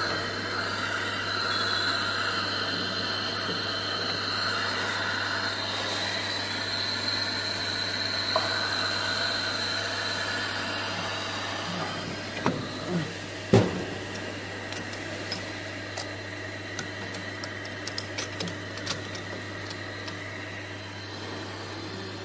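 Steady hum of factory machinery, with a few metallic clunks just past halfway and scattered light clicks after them, as the metal parts of a machine's hot-air heating head are handled and fitted.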